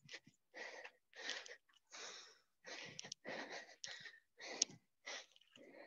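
Faint, hard breathing: a string of short breathy puffs every half second to a second, from a person out of breath from jumping exercises.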